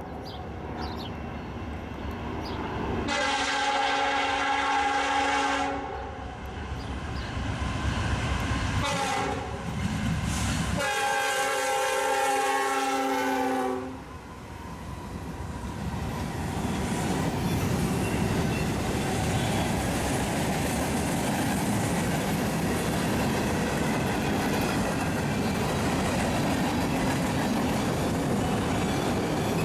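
Locomotive air horn sounding two long chord blasts of about three seconds each, followed by a train rolling past with a steady rumble and the clatter of wheels on the rails.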